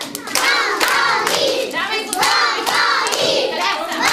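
Young children singing together while clapping their hands.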